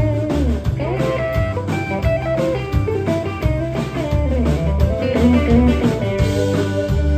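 Live country band playing: fiddle, acoustic guitar and electric guitar over a steady beat, with a lead line that slides and bends between notes.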